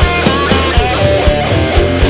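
Heavy rock music: distorted electric guitars carrying a melodic line over a steady drum beat.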